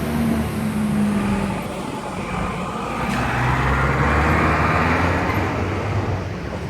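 Ziehl-Abegg centrifugal exhaust fan running: a steady rush of air with a low hum whose pitch wanders a little.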